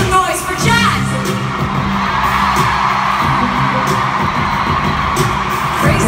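Amplified pop music over a stadium PA, a held low bass note under it, with a large crowd cheering that swells in the middle.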